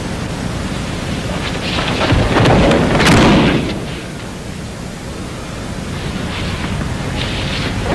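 Steady hiss and low hum, with a heavy rumbling thud rising about two seconds in and peaking in a sharp crack around three seconds: a body landing on the training floor as a jujutsu throw is completed.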